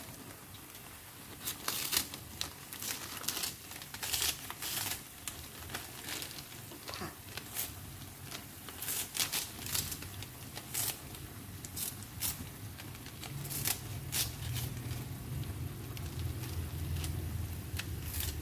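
Kitchen scissors snipping through crisp cabbage leaves: irregular crunchy cuts, often two or three in quick succession, as pieces drop into the pan. A low rumble comes in during the last few seconds.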